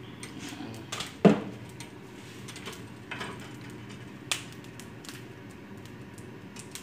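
Cooking oil heating in a frying pan on an electric coil burner, giving scattered small crackles and ticks over a low hum. A sharp knock about a second in, and a fainter click about four seconds in.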